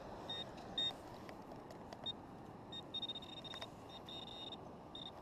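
Handheld pinpointer probe beeping as it is pushed through a pile of dug beach sand. It gives short single high beeps at first, then longer runs of rapid beeps from about three seconds in as the tip closes on a buried metal target, with a few clicks of sand and grit.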